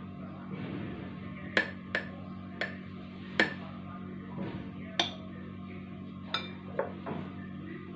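Spoon clinking against glass about seven times, in sharp separate clicks, while scooping thick whipped dalgona coffee from a glass bowl onto a drink.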